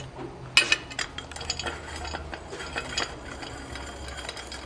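8 mm ratchet wrench clicking in quick, irregular runs while the ignition cover bolts are backed out, with light metal clinks.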